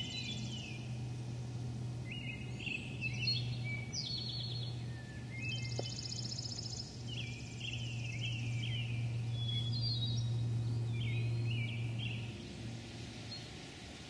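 Several songbirds singing in overlapping phrases, with high buzzy trills and shorter slurred notes coming one after another. A steady low hum lies under them and stops about twelve seconds in.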